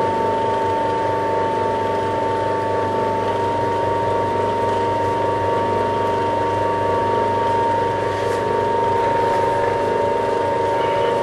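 Small benchtop metal lathe running steadily with its chuck spinning: a constant motor and gear hum with a thin, high, steady whine over it.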